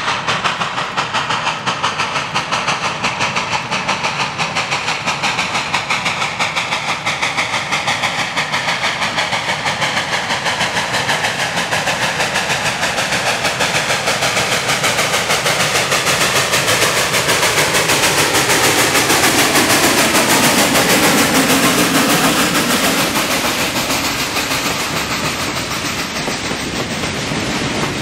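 Western Maryland Scenic Railroad No. 734, a 2-8-0 steam locomotive, working under a heavy load with a rapid chuffing exhaust. It grows louder as it approaches, passes about three quarters of the way through, and its sound drops in pitch as it goes by. Near the end the clickety-clack of the freight hopper cars rolling past takes over.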